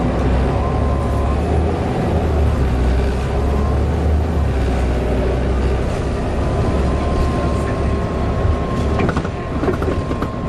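Volvo B7TL bus running, its diesel engine giving a deep steady rumble with a thin, steady high-pitched whine over it, the strange whining noise this bus makes. A few short clicks and rattles come near the end.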